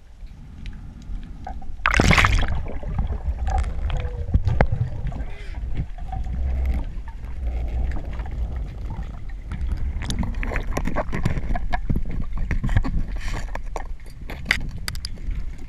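Underwater sound picked up by a GoPro in its housing during a freedive: a steady low rumble of moving water with scattered clicks and crackles, and a short loud rushing burst about two seconds in.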